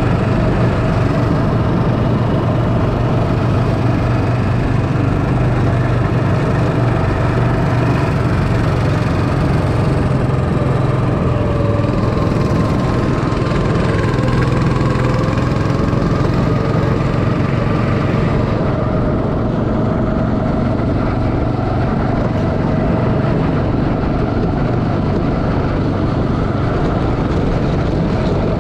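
Go-kart engine running steadily as the kart drives around the track, a constant low drone. The higher noise above it drops off about two-thirds of the way through.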